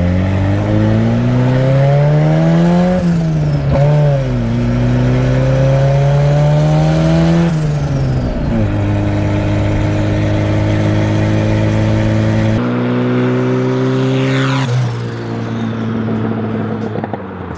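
Turbocharged Datsun 240Z's engine accelerating through the gears. Revs climb, dip at two upshifts about three and eight seconds in, then hold steady while cruising, heard from inside the cabin. Near the end the car is heard from outside and the revs drop off with a falling whistle.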